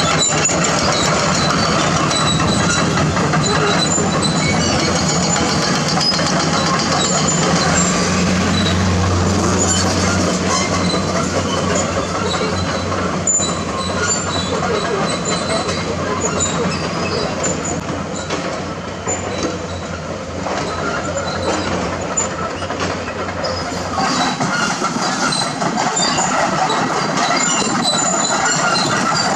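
Heavy excavator working hard limestone: diesel engine running under load with continuous metallic clattering and scraping of steel against rock. The engine hum drops away about 24 seconds in while the clatter goes on.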